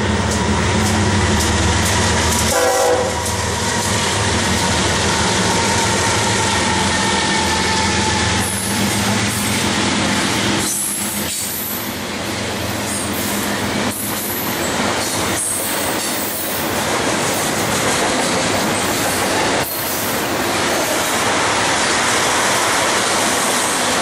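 BNSF double-stack container freight train passing: the diesel locomotives' engines give a low rumble for the first few seconds, then the stack cars roll by with a steady rumble and rattle of steel wheels on the rails, with scattered knocks.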